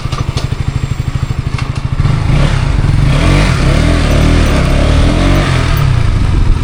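Motorcycle engine idling with an even pulse, then louder from about two seconds in, its pitch rising and falling as it is revved.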